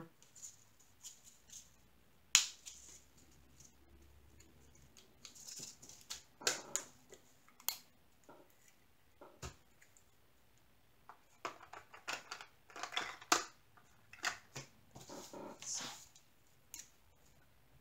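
Small plastic zip bags of diamond painting drills rustling and crinkling as they are handled, in short scattered bursts with a few sharp clicks.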